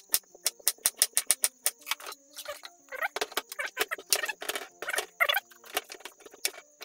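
Kitchen knife chopping vegetables on a wooden cutting board: rapid sharp knocks, about five a second at first, then slower, heavier cuts.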